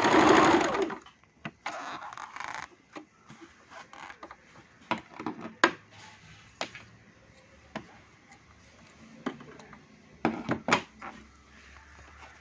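Sewing machine stitching a buttonhole, stopping about a second in, followed by scattered clicks and knocks.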